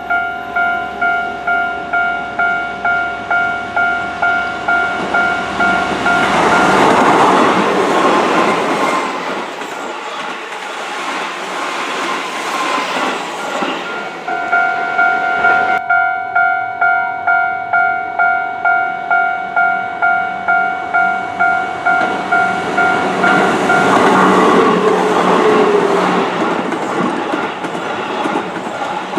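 Japanese level-crossing warning bell ringing in a steady beat of about two to three strokes a second, while Keihan electric trains pass close by twice, their wheel and running noise drowning out the bell.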